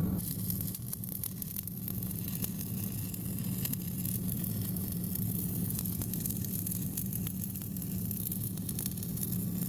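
Stick welding arc crackling and sizzling as a 7018 electrode runs a bead on a steel frame, over a steady low hum.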